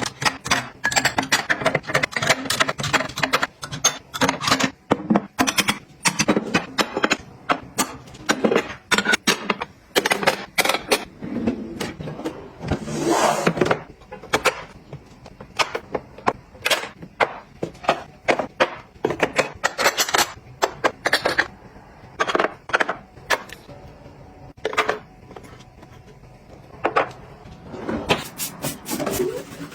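Hands handling and setting down small household items, giving a busy run of short clicks, taps and knocks, with a noisy burst lasting about a second roughly 13 seconds in.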